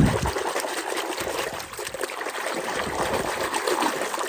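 Water running and trickling over a muddy toy as it is rinsed, steady throughout, opening with a short low thump.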